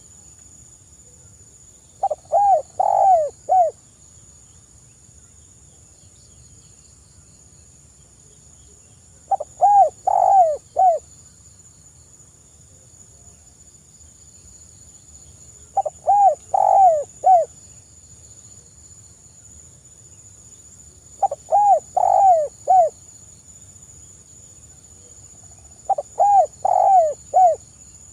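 Spotted dove cooing: five phrases a few seconds apart, each a short run of three or four coos.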